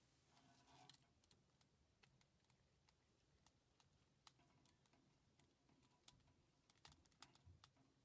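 Near silence broken by faint, scattered small clicks of a screwdriver tightening a terminal screw in an Edison plug, clamping down a ground wire.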